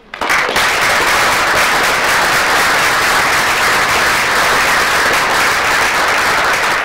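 Audience applauding a speaker at the close of a talk. The applause breaks out all at once and holds steady and loud throughout.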